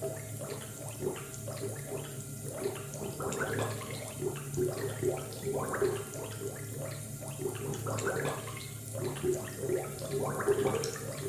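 Laboratory ambience: liquid bubbling in irregular small bursts over a steady low electrical hum.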